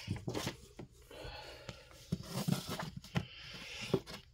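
Comic books being handled: paper rustling and sliding against the cardboard box, with several soft knocks and taps as one comic is set aside and the next is lifted out.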